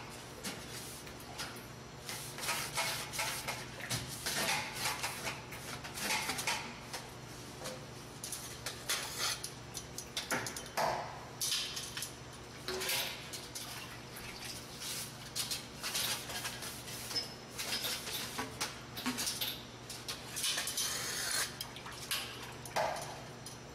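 Stiff brushes scrubbing the wet tube of a Columbia automatic drywall taper inside and out, in irregular scraping strokes with splashes of water, over a faint steady low hum.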